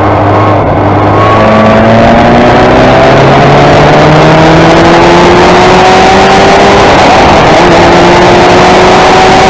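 Van Diemen RF88 Formula Ford racing car's engine, loud, running steady through a bend and then climbing in pitch under hard acceleration from about a second in, with a short dip at a gear change near the end.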